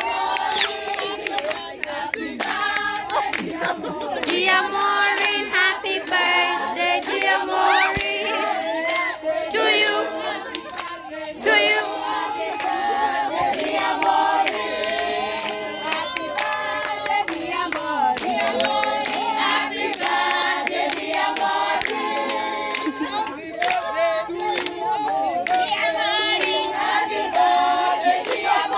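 A group of voices singing together in chorus without instruments, with hand clapping along.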